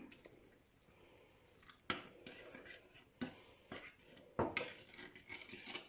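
Light clinks and knocks of kitchen dishes and utensils, with three sharper knocks about a second and a quarter apart, as water is added to grated turnip and sugar in a bowl.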